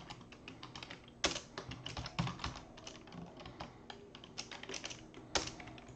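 Typing on a computer keyboard: irregular key clicks in quick runs with short pauses.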